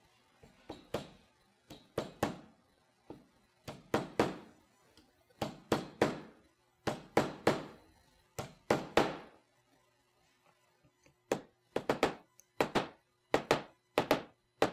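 A 16-ounce steel claw hammer driving a 1/4-20 hex bolt head into the undersized hex pocket of a wooden thumbscrew on a scrap plywood block: a long series of sharp knocks, then a pause of about a second and a half, then a quicker run of strikes near the end.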